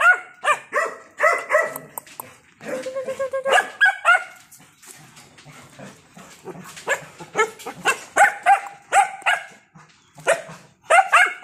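Several young Belgian Malinois barking in quick runs of short, high-pitched yaps. The barking thins out in the middle and comes in a fresh burst near the end.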